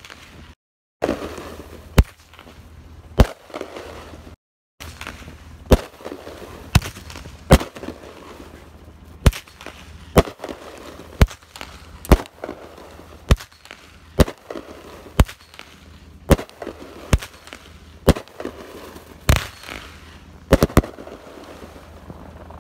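An aerial fireworks cake fires a long run of shots, about one sharp bang a second, with crackling in between. The audio drops out twice briefly near the start.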